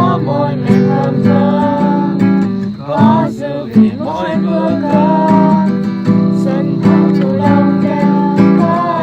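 Music: an acoustic guitar strummed in chords under a voice singing a melody.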